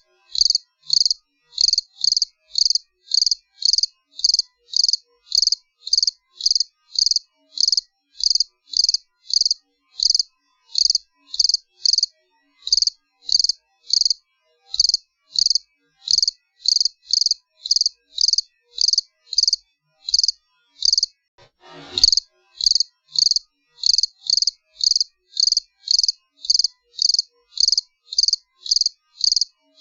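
A cricket chirping steadily, about two short pulsed chirps a second. Once, about three quarters of the way through, there is a soft knock.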